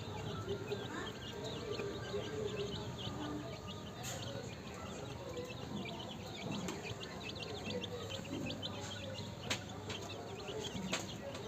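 A group of Aseel chicks peeping continuously, many short high cheeps overlapping, with two sharp clicks near the end.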